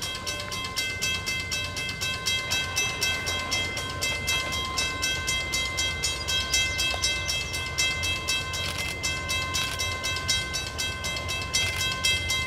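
Western Cullen Hayes mechanical crossing bell ringing with rapid, evenly spaced strokes, each stroke leaving a sustained metallic ring. It is warning of an approaching train and stops just at the end.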